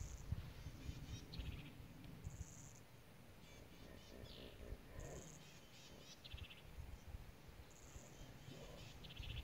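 Faint outdoor ambience. A short, high buzzing chirp repeats about every two and a half seconds, quick pulsing trills come in between, and a low rumble runs under them.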